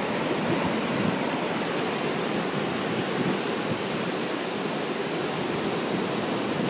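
Ocean surf washing up the beach: a steady, even rush of small breaking waves.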